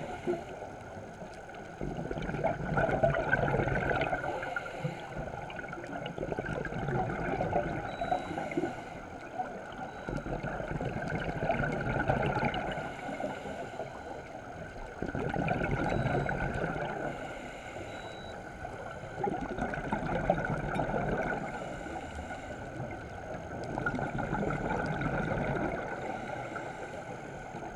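Scuba diver breathing through a regulator underwater: a rush of exhaled bubbles about every four to five seconds, six times, with quieter inhalations between.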